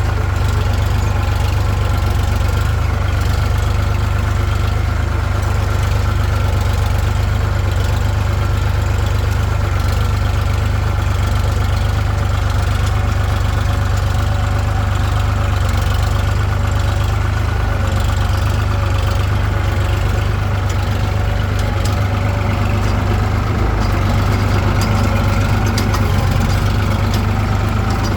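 Eicher 65 hp tractor's diesel engine running steadily, its sound mostly low and with no change in speed or level.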